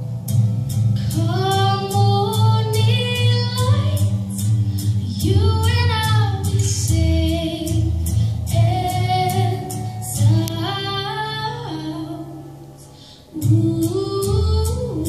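A young woman singing solo into a microphone with instrumental accompaniment: a steady low bass and a regular beat. The voice carries rising and falling phrases, fades about twelve seconds in, and comes back strongly a second later.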